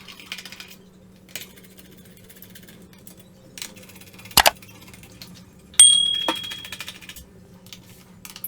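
Small clicks and taps of a screwdriver working the screws of a laptop's base cover, with a sharp louder click about four and a half seconds in. Near six seconds a small metal part drops onto a hard surface with a short ringing clink. A faint steady hum runs underneath.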